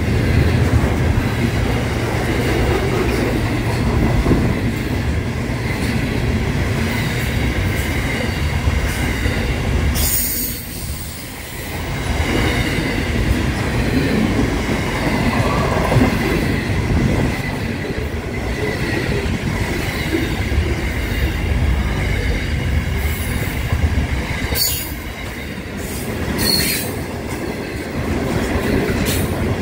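Freight train of container and tank wagons rolling past close by: a steady rumble of steel wheels on rail with a faint high whine over it, a brief lull about eleven seconds in, and a few sharp clicks.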